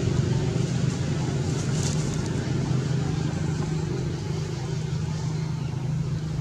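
A steady low engine hum, like a motor vehicle running at a constant speed.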